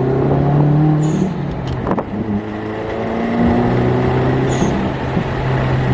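Subaru WRX's turbocharged flat-four running through a muffler-deleted exhaust, its pitch rising and falling as if driven, with two brief high chirps about a second in and near the end.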